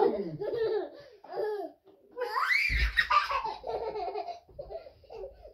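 Young child laughing in bursts of belly laughter while being swung in a blanket, with a rising squeal and a low thump about halfway through.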